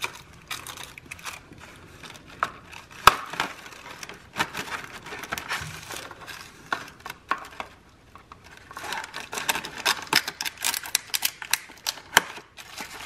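Scissors cutting the thin plastic film over a microwave meal tray: crinkling plastic and sharp clicks of the blades. The crinkling and clicking get much busier about three-quarters of the way in.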